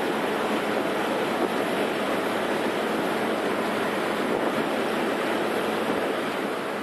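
Steady rush of road and wind noise heard inside a Toyota Land Cruiser's cabin as it drives along a sealed road.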